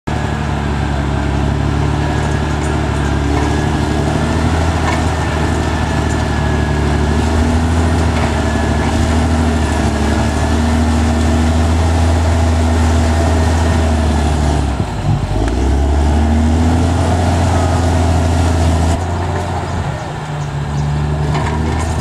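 Caterpillar D6R XL bulldozer's diesel engine running steadily under load as the blade pushes a pile of dirt and rocks, with a thin wavering whine above the low engine drone. The engine note dips briefly about two-thirds of the way in and drops back for a moment near the end.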